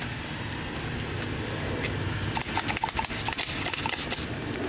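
Rapid volley of BB cannon fire between radio-controlled model warships: a clattering string of sharp clicks and pops, starting a little over two seconds in and lasting about two seconds.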